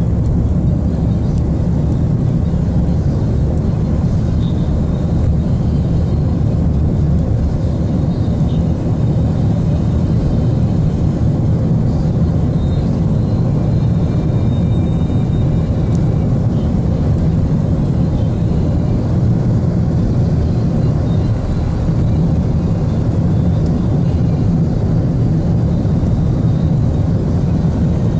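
A car driving at a steady speed, heard from inside the cabin: an even low rumble of engine and tyres on the road.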